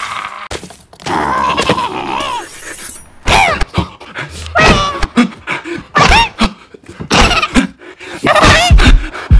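Short vocal cries and squeals with sliding pitch, broken up by several sharp knocks and thuds.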